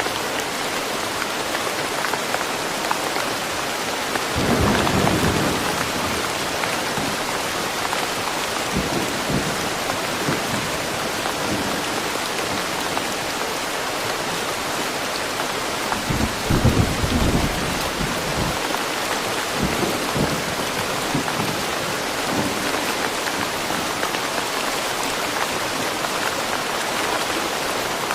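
Steady rain falling in woodland, with rumbles of thunder: a louder roll about four seconds in, another at about the middle, and fainter rumbles between and after.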